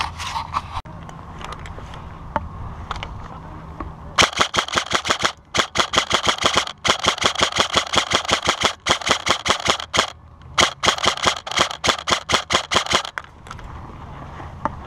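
Airsoft rifle firing on full auto in several long bursts of rapid, evenly spaced clacks with short pauses between them, after a few scattered single clicks.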